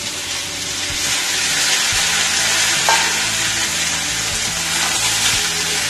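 Chopped ridge gourd and potato sizzling as they fry in hot oil in a wok, stirred with a spatula. The sizzle grows louder about a second in as the vegetables hit the oil, then holds steady.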